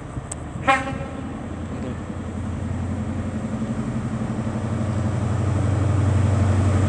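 Class 43 HST power car's diesel engine pulling a departing InterCity 125 away and approaching, a steady low drone growing louder throughout. A single short toot sounds about a second in.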